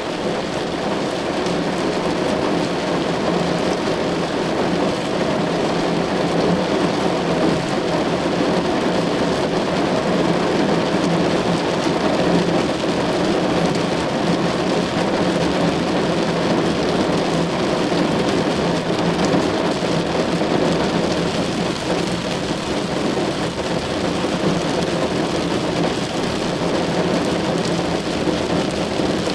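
Steady rain drumming on a car's roof and windows, heard from inside the cabin: a dense, unbroken patter with a low, hollow body.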